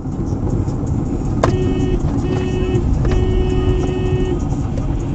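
Car driving on a snowy road, heard from inside the cabin as steady engine and tyre noise. From about a third of the way in, a steady tone sounds three times, short, short, then longer.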